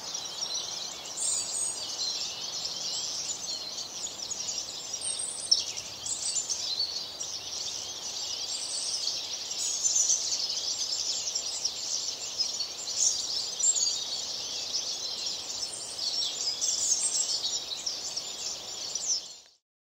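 Many small birds chirping at once in a dense, continuous chorus, fading out near the end.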